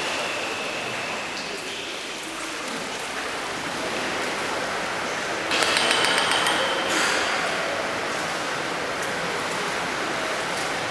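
Steady wash of indoor swimming-pool noise. About halfway through comes a quick run of knocks on a metal pool ladder, ringing. This is the coach's knocking to cheer on and pace a freediver swimming underwater.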